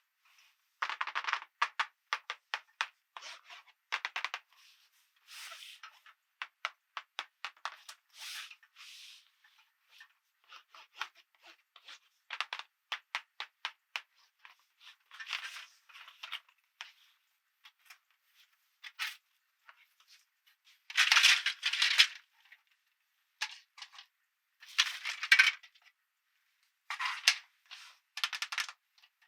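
Small plastic toy pieces being handled: quick irregular clicks and taps, with short rustling scrapes, the loudest two about two-thirds of the way through.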